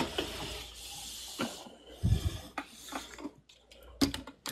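Handling noise from a phone being carried and repositioned: rustling with scattered knocks and clicks, and a low thump about two seconds in.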